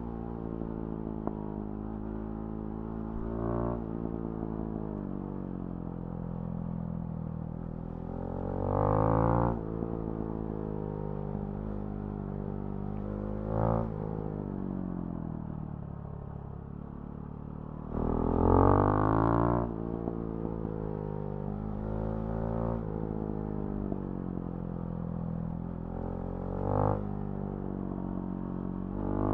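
2019 Husqvarna Svartpilen 701's single-cylinder engine through a Remus NXT exhaust, running under way with its pitch rising and falling through the gears. It opens up loudly twice, about nine and nineteen seconds in, with shorter throttle blips in between.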